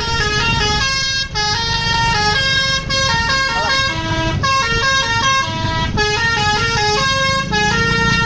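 A bus's multi-tone 'telolet' horn playing a quick melody of short notes that step up and down. The phrases are broken by short pauses about a second in, near three seconds and about six seconds in, over a steady low engine rumble.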